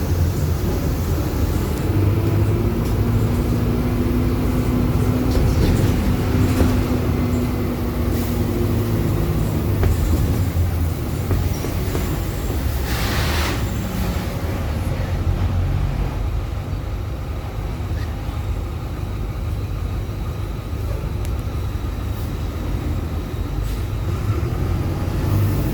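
Marcopolo Sênior Midi bus on an Agrale MA 15.0 chassis under way: steady low running and road rumble, with the differential's howl rising and then falling in pitch for several seconds near the start, a sign of a very noisy differential. A short hiss about halfway through.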